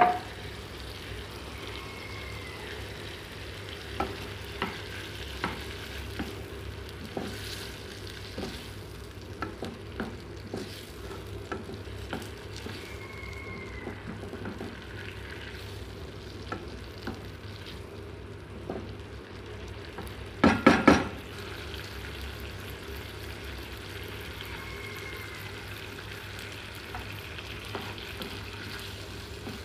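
Shrimp sizzling in sauce in a non-stick frying pan, stirred with a wooden spatula: a steady sizzle with scattered light taps of the spatula on the pan, and a quick run of louder knocks about twenty seconds in.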